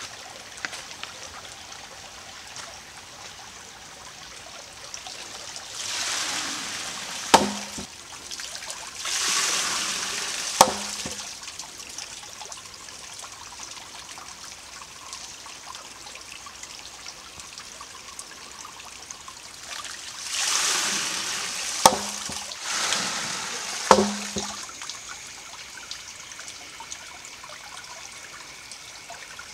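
Primitive wooden water-powered hammer in a trickling creek: the pivoting log's trough tips and spills its water with a rush, then a sharp wooden knock follows as the hammer strikes its stone. This happens four times, in two pairs about three seconds apart, over a steady trickling stream.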